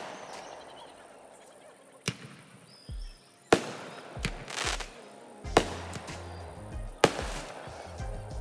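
Fireworks going off: four sharp bangs spaced a second or two apart, with a crackling rush between the second and third.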